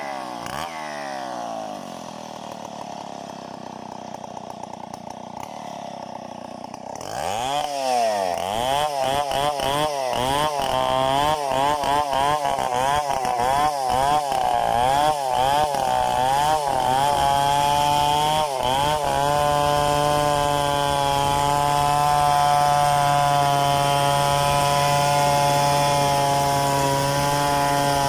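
Stihl chainsaw engine: quieter and low for the first few seconds, then revved up about seven seconds in, its pitch swinging up and down as the chain cuts into gmelina wood. For the last ten seconds or so it holds a steady high pitch at full throttle in the cut.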